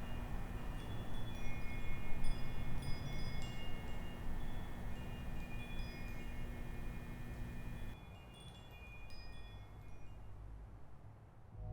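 Wind chimes ringing at random, with scattered high ringing tones over a steady noisy background and a low hum. About eight seconds in the hum stops and the background drops, and the chimes carry on more faintly.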